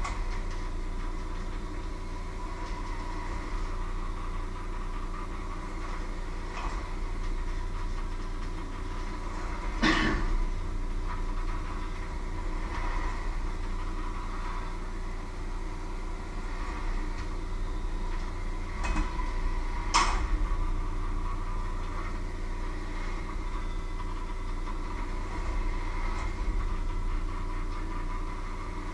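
Electric hand mixer running steadily, its beaters working a mixture in a stainless steel bowl, with two sharp knocks about ten seconds apart.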